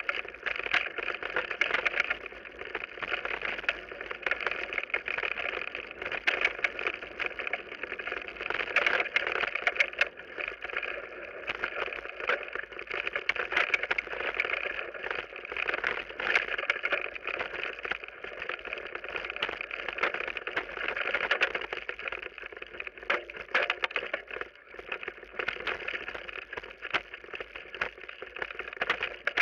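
Mountain bike rolling fast down a dirt and gravel forest trail, heard from the rider's camera: a steady rush of tyre and wind noise with frequent small clicks and rattling knocks as the bike goes over the rough surface.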